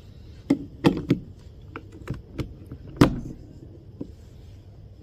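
Plastic clicks and knocks of a three-pin UK plug being handled against a power strip and pushed into its socket, about eight in all, the loudest about three seconds in.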